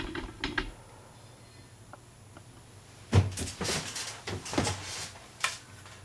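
Scattered clicks and knocks of small objects being handled on a workbench: a few near the start, then a busier run of knocks from about three seconds in.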